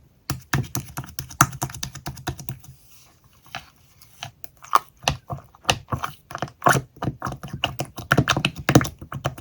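Keys being typed on a keyboard: quick, irregular clicks, thinning out briefly about three seconds in before picking up again.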